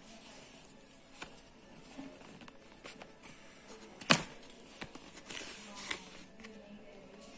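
Cardboard packaging being handled: a trimmer's inner box slid out of its paper sleeve and its lid flipped open, with scattered scrapes and taps, the loudest a sharp knock about four seconds in.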